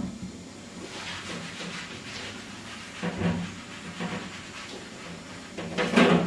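Whiteboard eraser rubbed in repeated strokes across a whiteboard, wiping off marker writing. A brief louder sound comes about three seconds in and again near the end.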